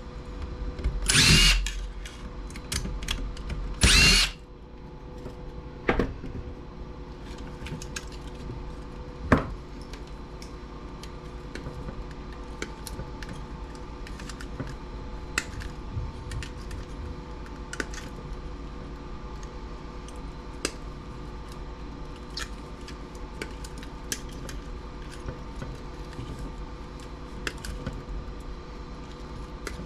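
Two short bursts of a power drill, about a second in and again about four seconds in, then scattered light clicks and taps over a steady faint hum.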